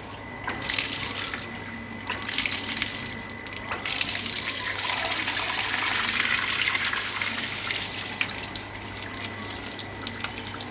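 Backwash water from a household water filter gushing out of an open PVC outlet pipe and splashing onto the floor. It comes in surges over the first four seconds, then pours steadily.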